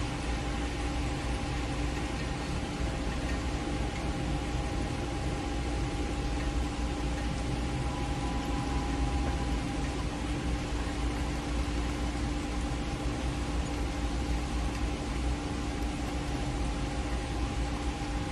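Steady rain noise, an even hiss with no single drops standing out, with a constant mechanical hum underneath it.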